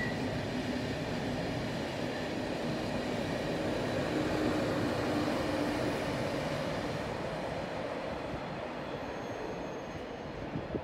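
Thalys high-speed electric trainset running past on the rails, a steady rumble of wheels with a low hum, fading as it draws away in the second half.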